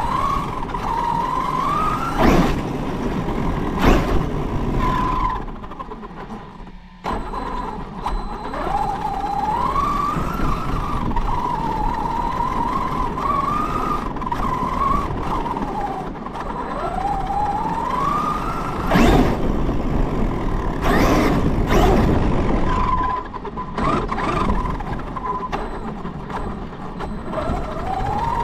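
Large RC car's motor and drivetrain whining, the pitch rising and falling with throttle and speed, over the rumble of its tyres on paving and snow. A few sharp knocks from bumps, and a short lull about six seconds in.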